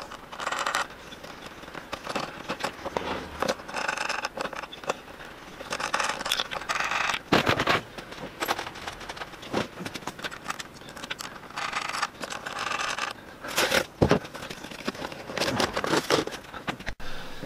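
Wooden stop blocks being handled, slid along and fitted to a slotted plywood drill press fence: irregular scraping of wood on wood, with small clicks and a few sharp knocks.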